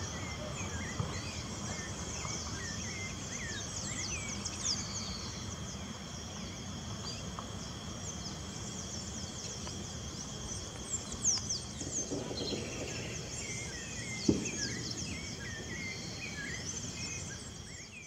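Outdoor ambience of many small birds chirping and calling over a steady, high insect drone. A few short knocks stand out past the middle, the loudest a single sharp one.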